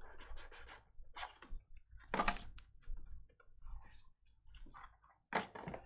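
Hands opening and handling a cardboard trading-card hobby box, its sleeve sliding and its lid and foam insert rubbing, in a run of short scrapes and clicks. A louder scrape comes about two seconds in and another near the end.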